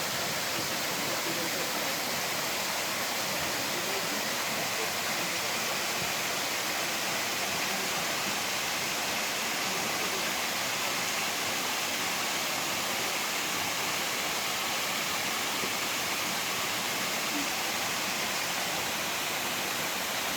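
Waterfall: water pouring in a steady, even rush that does not change.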